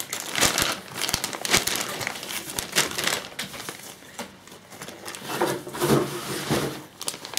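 Clear plastic bags of model-kit parts crinkling and rustling as they are handled and sorted by hand, a dense run of crackles and small clicks.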